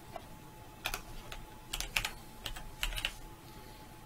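Typing on a computer keyboard: a quick, irregular run of key clicks as a name is typed in.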